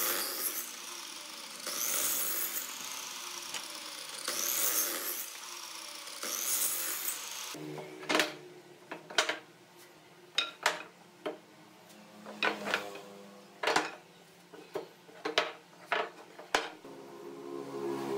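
A sliding miter saw cutting small wooden blocks, its blade noise swelling with each of about four cuts. Then a string of sharp wooden knocks as hardwood strips are set down and handled on a wooden workbench.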